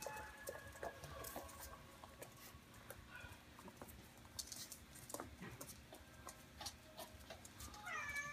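Faint scattered clicks and taps of Chihuahua puppies scrabbling on a wooden floor and at a food dish, with a few soft squeaks. Near the end, a puppy gives a short run of high-pitched whimpering yelps.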